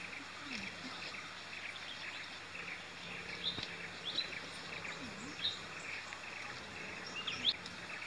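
Forest ambience: a steady background chorus of small chirping calls from birds and insects, with a few short, sharp, high bird notes scattered through the second half.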